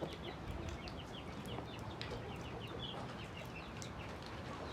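A brood of baby poultry peeping: many short, high, falling peeps, several a second and overlapping.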